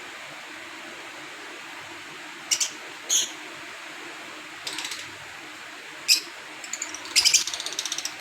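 Lovebirds giving short, high-pitched chirps: a few single calls, then a quick run of chirps near the end, over a steady low hum.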